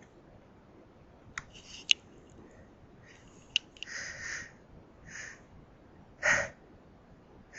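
Quiet sniffles and breaths, with a few small mouth clicks; the loudest sniff comes about six seconds in.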